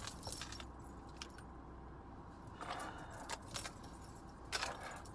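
Short spells of small clinks and rattles from handling things, at the start, about three seconds in and near the end, over a low steady hum in a car.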